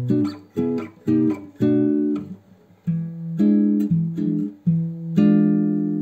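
Background music: an acoustic guitar playing chords without singing, each chord struck and left to fade, with a longer ringing chord near the end.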